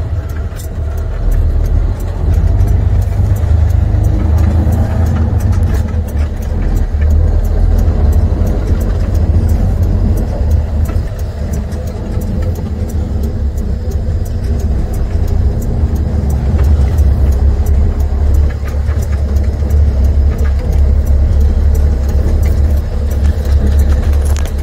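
Diesel engine of an International semi tractor, MaxxForce-powered, heard from inside the cab as it pulls slowly across a dirt yard: a steady deep rumble with light clicks and rattles throughout.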